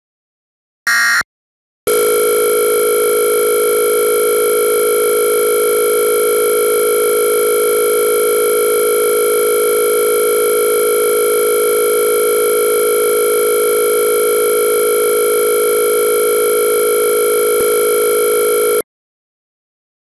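One short burst of Emergency Alert System end-of-message data tone about a second in. After a brief gap comes a loud, steady buzzing tone made of many pitches at once, which holds unchanged for about 17 seconds and then cuts off suddenly.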